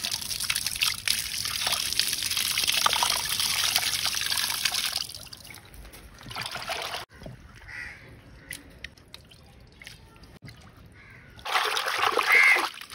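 Water pouring and splashing as cut sardines are scrubbed and rinsed by hand. After about five seconds the water stops, leaving a few small clicks of handling, and near the end there is a louder splashing burst.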